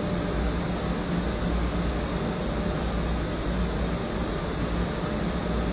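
Steady, even hiss with a low hum underneath, unchanging throughout.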